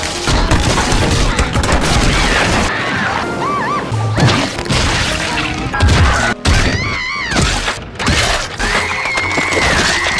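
Cartoon soundtrack: music with crashes and thuds, and high wavering cries about two-thirds of the way in and again near the end.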